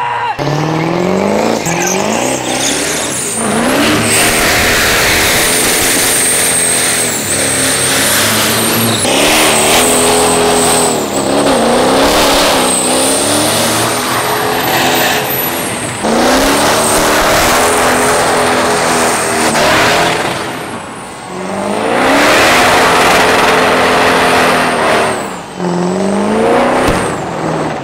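Supercharged engine of a red Mustang-bodied pickup doing a burnout: it is revved hard again and again, each time climbing steeply in pitch and holding near the top before dropping back. Over it runs the screech of the spinning rear tyres.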